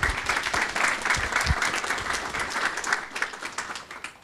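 Audience applauding: many hands clapping in a dense patter that fades away near the end.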